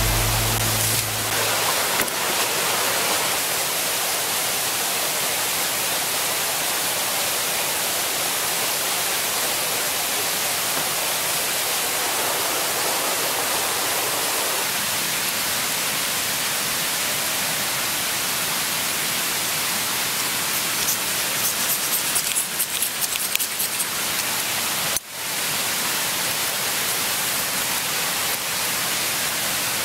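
Steady, even rush of running water, as from a forest stream or waterfall, after a music track fades out in the first second or two. A run of light clicks comes about two-thirds of the way through, and the sound drops out briefly near the end.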